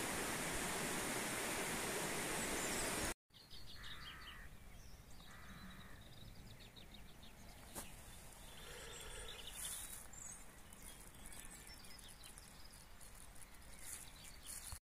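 Flowing river water rushing over stones, a steady hiss that cuts off abruptly about three seconds in. Then quieter open-air sound with birds calling, including two harsh calls around four and five and a half seconds in.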